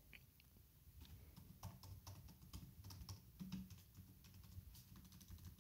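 Faint computer keyboard typing, soft irregular key clicks as a file name is typed.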